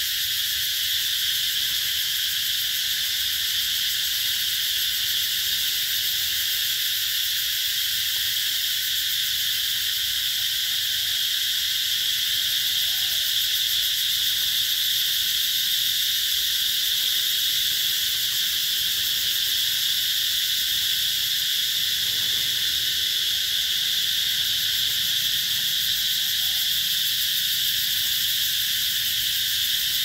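A chorus of cicadas singing: a dense, steady, high-pitched drone that holds unbroken.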